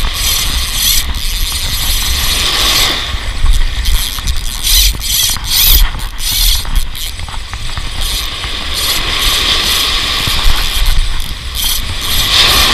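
Ryobi Rockin C Pro fishing reel being cranked with a steady ratcheting whir as a lure is retrieved. Surf washes in about two and a half seconds in and again near the end, over a low wind rumble on the microphone.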